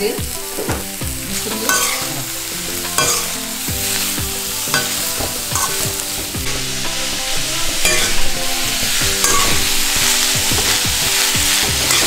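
Sliced green capsicum and onion sizzling in hot oil in an aluminium kadhai, stirred and tossed with a slotted spatula that scrapes against the pan again and again. The sizzle grows louder about halfway through.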